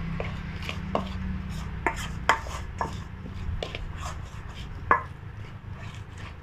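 A metal spoon stirring thick flour-and-oil dough in a stainless steel bowl, scraping softly and clinking against the bowl's side about five times, the sharpest clink about five seconds in. A low steady hum runs underneath.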